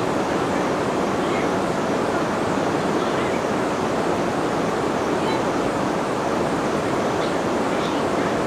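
Jaldhaka River water rushing steadily, an even unbroken rush of flowing water.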